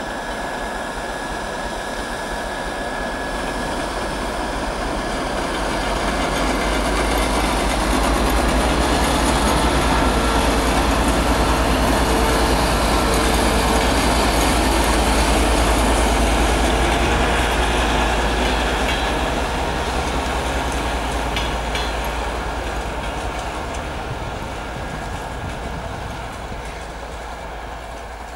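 A TEP70BS diesel passenger locomotive pulls away hauling passenger coaches, its 16-cylinder diesel engine working under load. The sound grows louder as it passes close by, peaks about halfway, then fades as the coaches roll on.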